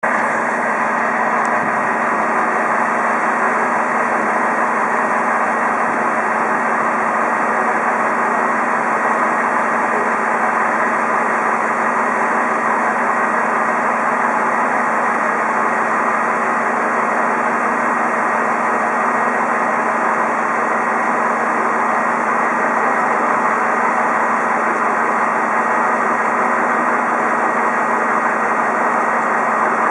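Rosenbauer Panther airport crash tender's diesel engine idling with a steady, unchanging drone and hum.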